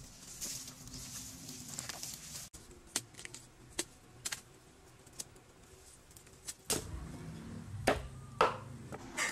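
Handling sounds of digging up and preparing a banana corm: rustling and scraping in dry leaves and soil, a few sharp clicks, then near the end a cleaver chopping through the corm on a wooden block in a few sharp strokes.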